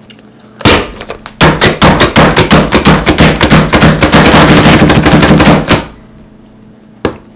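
Plastic plunger-style food chopper being slapped down repeatedly on a banana on a cutting board: one slap about half a second in, then a rapid run of about six slaps a second for some four seconds, and a single slap near the end.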